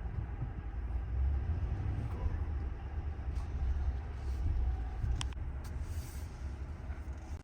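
Cabin noise inside a 2023 Ram 1500 Limited pickup on the move: a steady low rumble of road and drivetrain noise, with a single sharp click about five seconds in.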